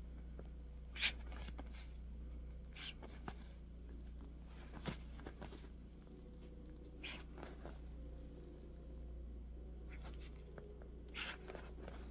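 Rubber RC truck tire and leather work gloves squeaking as the tire is twisted and pulled against its plastic rim, to break glue that is still holding. About five short squeaks, each rising then falling, with a few soft clicks between, over a low steady hum.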